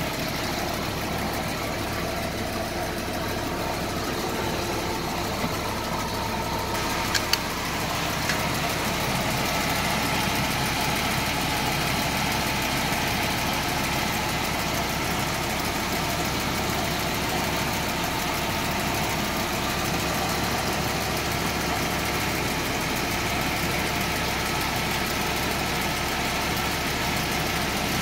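Audi five-cylinder engine idling steadily, with a couple of short clicks about seven seconds in, after which it runs slightly louder.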